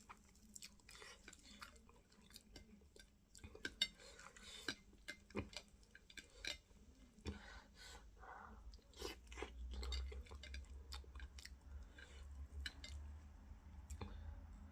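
Close-miked mouth sounds of a person eating fufu with okra fish stew: chewing and lip smacking, a string of many short clicks and smacks. A low rumble comes in about halfway through.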